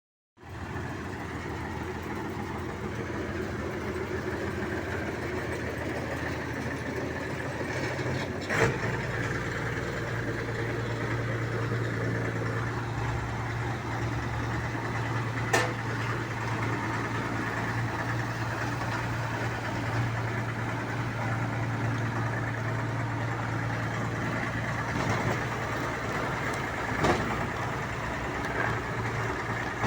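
Komatsu D31E bulldozer's diesel engine running steadily, its note shifting lower and stronger about eight seconds in, with a few single sharp knocks spread through.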